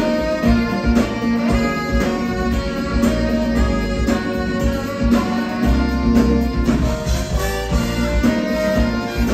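Live show band playing an instrumental with drums and a steady beat under sustained melodic lines.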